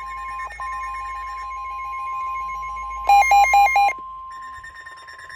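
Several NOAA weather radios alarming at once: a steady single warning tone under repeating electronic beeps from the receivers. About three seconds in a loud burst of rapid warbling beeps rings out for under a second.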